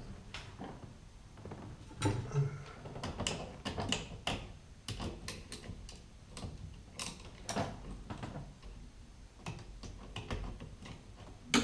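Hand tools working on metal fittings: an irregular run of sharp clicks and knocks, like a spanner or ratchet turning a nut.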